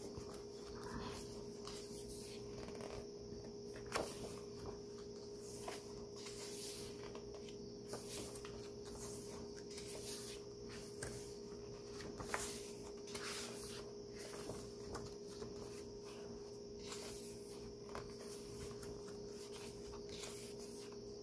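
Pages of a thick hardcover photo book being turned and handled: irregular soft paper rustles and taps, over a faint steady hum.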